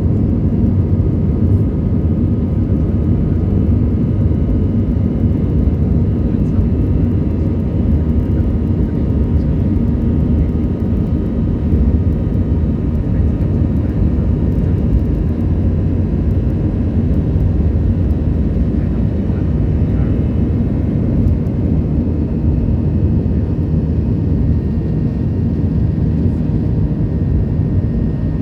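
Steady loud rumble of an airliner's jet engines and airflow heard from inside the passenger cabin, with a few faint steady tones above it.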